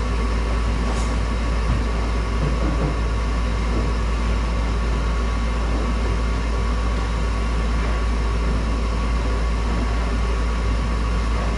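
Modine Hot Dawg gas-fired unit heater running on its test firing after installation, a steady low rumble and hum from its burner and fans.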